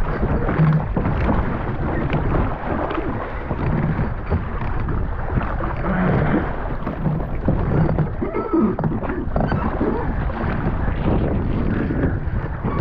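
Wind buffeting the microphone in an uneven rumble, over water sloshing around a kayak.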